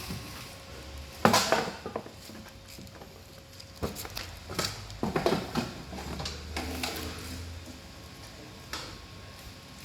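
A dog eating dumplings: irregular short bursts of chewing and mouth noises, the loudest about a second in.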